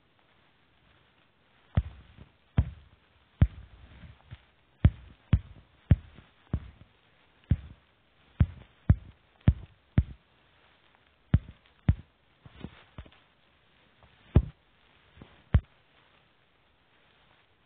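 Fingertip taps on a smartphone's touchscreen, picked up close to the microphone as irregular dull knocks, some eighteen of them, starting about two seconds in and stopping shortly before the end.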